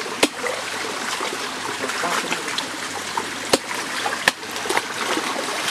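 Machete cutting at the spiny stalks of a salak palm: a few sharp cracks, one near the start and two louder ones in the second half, against a steady rushing hiss.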